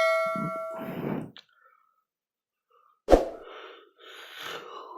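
A computer chime rings and fades out within the first second. About three seconds in comes a sharp, breathy burst from a person, with softer breathing-like noise after it.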